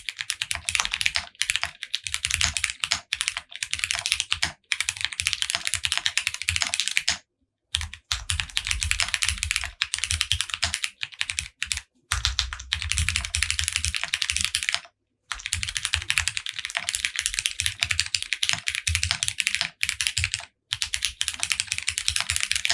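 Continuous fast typing on a custom mechanical keyboard with lubed Cherry MX Brown tactile switches, light 55g springs, a polycarbonate plate and GMK keycaps, with plate and case foam. A dense run of key clicks that pauses briefly three or four times.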